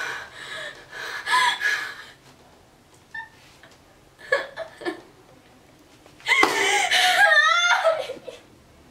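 A woman gasping and breathing hard, then breaking into a loud, wavering sob about six seconds in.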